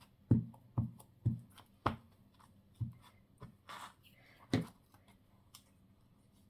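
A series of about six short, dull knocks on a tabletop as paper craft pieces are handled and pressed down, with a brief paper rustle between the last two.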